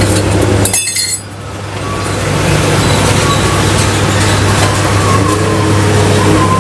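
A brief run of glassy clinks about a second in, from drink-making cups and utensils being handled, over steady road traffic noise.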